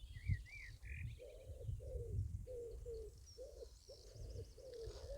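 A bird cooing: a steady run of short, low, hollow notes, about two a second, beginning about a second in. A few faint higher chirps come from another bird just before.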